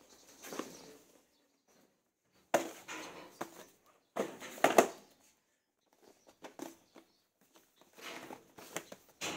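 Small cardboard product boxes being handled and set down on a wooden table: rustling with sharp knocks in a few short bursts, with quiet between.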